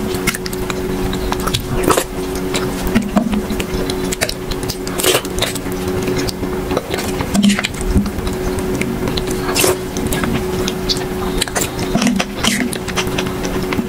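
Close-up eating sounds: a metal spoon scraping and clinking in a glass bowl, with wet mouth smacks and slurps of a milky pudding, coming irregularly over a steady low hum.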